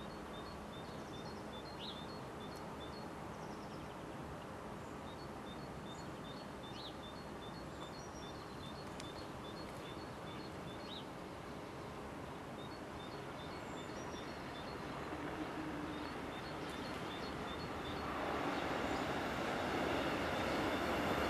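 Steady outdoor background hum with a small bird chirping in a quick repeated pattern. In the last several seconds the running noise of an approaching CFL double-deck electric passenger train rises steadily and drowns out the birdsong.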